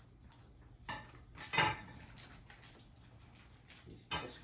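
Small hard objects clinking and clattering as they are handled on a table: three short knocks, about a second in, the loudest half a second later, and another near the end.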